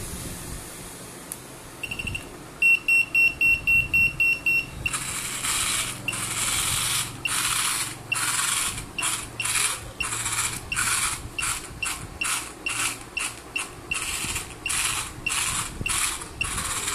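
A small electronic buzzer on a hobby line follower robot beeps quickly about eight times, then the robot's small DC gear motors whir in short on-off bursts, about two a second, as it switches its drive to steer along the black line.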